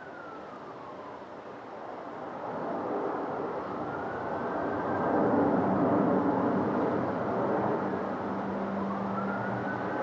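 Airliner passing close by, its engine noise swelling over the first half and staying loud, with a faint whistling tone that sweeps up and down in pitch.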